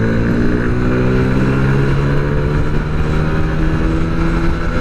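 Small petrol scooter engine pulling as the rider accelerates, its note rising over the first two seconds and then holding steady at cruising speed, over steady wind and road noise.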